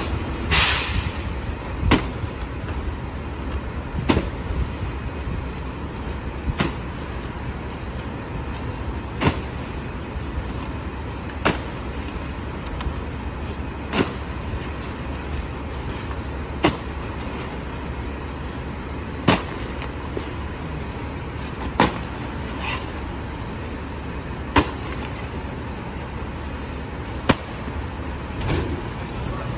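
A DSNY rear-loading garbage truck idling steadily, with a sharp click about every two and a half seconds and a short hiss about half a second in.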